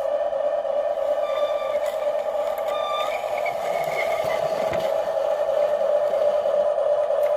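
Small electric gear motors of a toy RC excavator whirring steadily.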